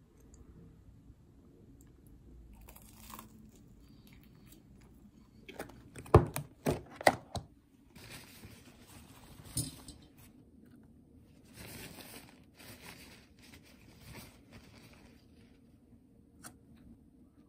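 Close-miked eating and food-handling sounds: a sugar-coated twisted doughnut being torn, bitten and chewed, with a few sharp clicks about six seconds in, the loudest sounds, and later soft rustling as strawberries are handled and set on a wire rack.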